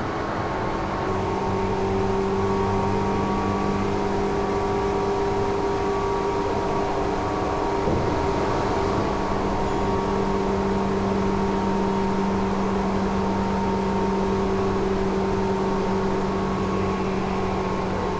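Tokyu 8500 series electric train's traction motors and gearing heard from under the car at steady running speed: a loud, steady hum of several held tones over rail and running noise. It takes over from the quieter cab sound about a second in, and there is a single short knock about eight seconds in.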